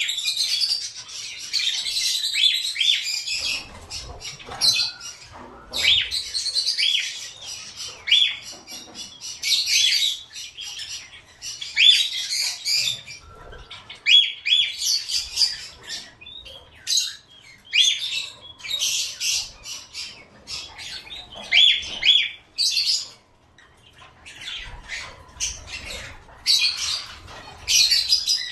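Caged pet birds chattering: quick runs of high-pitched chirps and squawks, many short notes in a row with brief gaps between runs.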